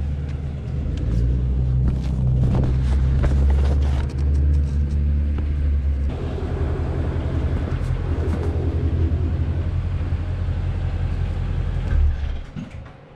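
Car engine idling with a deep, steady exhaust rumble, its pitch shifting a few times, then cutting off near the end.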